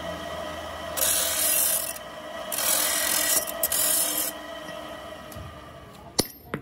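Abrasive cut-off wheel grinding into a steel piece: two bursts of harsh grinding, about a second and then nearly two seconds long, over the steady whine of the spinning wheel and motor. A single sharp metallic tap near the end.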